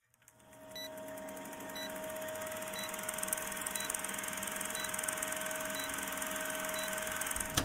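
Film-projector sound effect running under a countdown leader: fast mechanical clatter with hiss and a steady hum, with a short tick about once a second as the numbers count down. It starts about a second in and stops with a click near the end.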